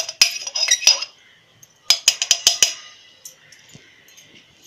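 Stainless steel kitchen utensils clinking: a quick run of light metal taps with a short ring in the first second, then a second run about two seconds in, then only faint sounds.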